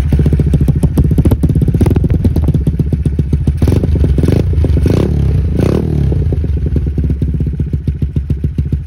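Yamaha LC135's single-cylinder four-stroke engine running through a GL Racing 'cutting standard' aftermarket exhaust, a fast, steady beat of exhaust pulses at idle. It is blipped briefly a few times in the middle, each blip a short rise in the note.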